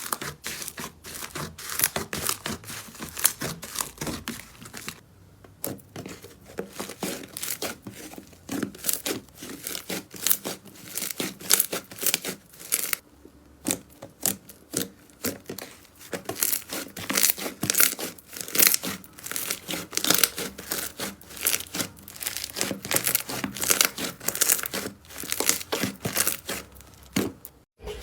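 Slime being squeezed and worked by hand, giving dense runs of sticky crackles and pops, with short pauses about five and thirteen seconds in.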